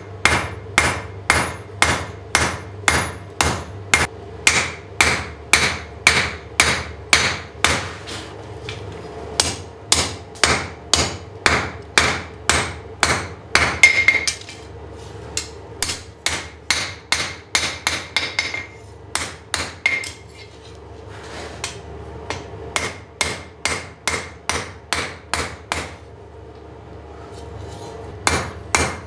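Blacksmith's hand hammer forging a square steel bar on an anvil: steady blows about two a second, each followed by a ringing note, with a few short pauses between runs.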